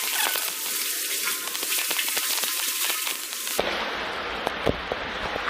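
Crackling hiss of water running and splashing in a brick culvert tunnel. About three and a half seconds in it changes abruptly to a duller hiss with a few short knocks.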